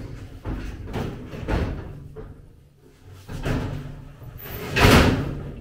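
Metal drawer cabinets being pushed and shoved into place under a steel welding table: repeated scraping and knocking of metal on metal, with the loudest bang about five seconds in.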